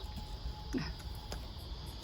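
Backyard chicken giving one short, falling cluck about a second in, followed by a light tap, over a steady low hum.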